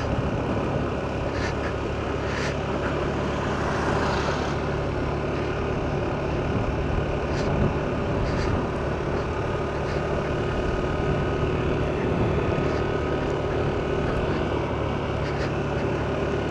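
Car driving at a steady pace: a continuous engine hum with tyre and road noise, a brief swell of hiss about four seconds in and a few faint ticks.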